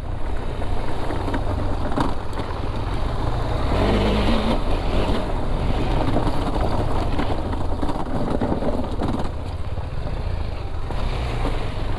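KTM motorcycle being ridden on an unpaved dirt track: the engine running with a steady rush of wind and tyre noise and a deep rumble.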